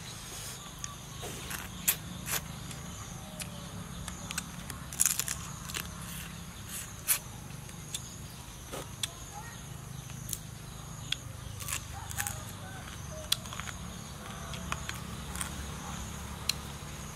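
Salted crab being eaten close to the microphone: irregular sharp cracks and clicks of shell being bitten and pulled apart, over a steady faint high hum.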